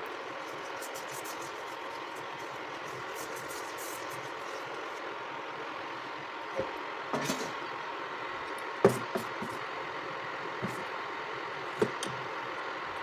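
Induction cooktop running under a cast iron dosa tawa: a steady fan hum, with a few sharp knocks in the second half.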